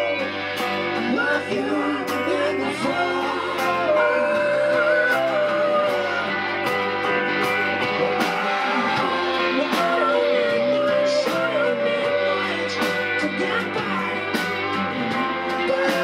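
Live band playing a rock-blues song on resonator guitar, electric guitar, electric bass and drums, with sung vocals and a steady cymbal beat.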